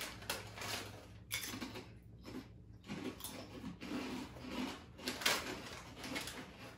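Potato chips being crunched and chewed in irregular crunches, with some crinkling of the chip bag near the end.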